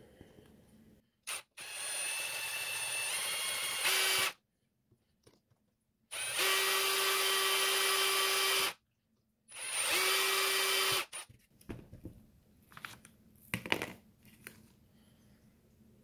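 Milwaukee cordless drill boring small holes through the metal pin terminals of a car door chime module: a short blip, then three runs of a few seconds each with a steady whine. A few light clicks follow near the end.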